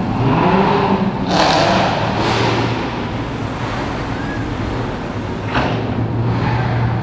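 Dodge Charger driving past up close, its engine revving up in the first second and then pulling by with a few short surges of exhaust noise.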